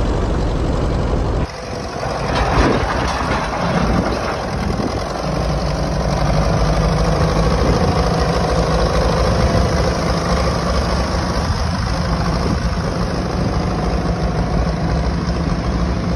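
Small grey Ferguson tractor's engine running steadily under load as it tows a large Stewart grain trailer. The sound changes abruptly about a second and a half in.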